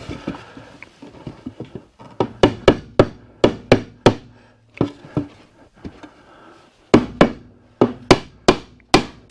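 A red-headed mallet strikes the edge of two edge-glued pine boards, about fourteen sharp knocks in two quick runs. The first run starts about two seconds in and the second about seven seconds in, after a pause. The boards are being knocked into line while the glue is wet.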